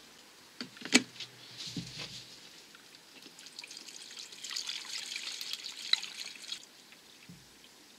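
Engine coolant poured from a plastic jug through a plastic funnel into the expansion tank, trickling and splashing, to refill the cooling system. A sharp plastic click comes about a second in, and the pour stops a little before the end.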